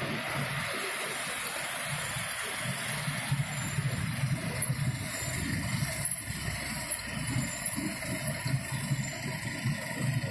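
Miniature ride-on train rolling along its narrow-gauge track, heard from a passenger car: a steady rolling noise with an uneven low pulsing.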